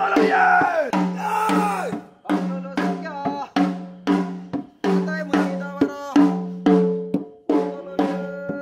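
Ritual drums beaten in a fast, uneven rhythm of two to three sharp strokes a second, each stroke followed by a low ringing tone.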